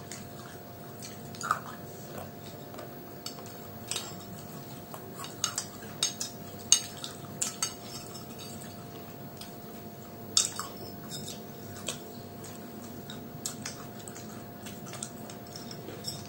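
Spoon and plates clinking during a meal: scattered sharp clinks and taps, irregular, a few every couple of seconds, over a faint steady hum.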